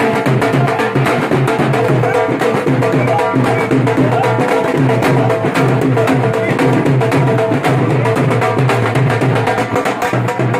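Dhol, the two-headed barrel drum, beaten with sticks in a fast, steady dance rhythm: sharp stick strokes over repeated deeper bass strokes.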